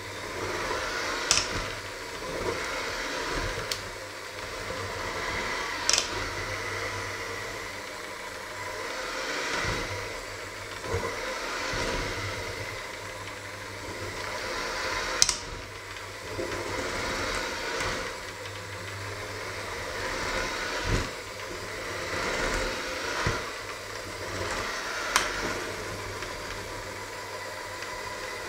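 Electric hand mixer running steadily, its beaters churning a thick mixture in a stainless steel bowl. The sound swells and eases as the beaters move through the mixture, with a few sharp clicks of the beaters striking the steel bowl.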